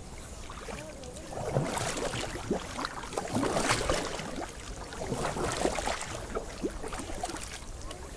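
Kayak paddle blades dipping into river water, an irregular run of splashes, swishes and drips, louder from about a second and a half in.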